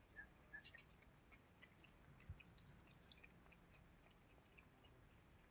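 Faint chewing of a cat eating, heard as irregular small crunchy clicks.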